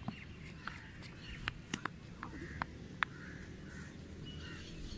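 Birds calling in short chirps and caws, with a few sharp clicks and knocks; the first knock, right at the start, comes as a cricket bat swings at the ball.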